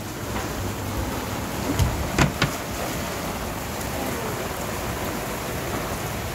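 Heavy rain pouring down steadily in a thunderstorm, with a few sharp knocks close together about two seconds in.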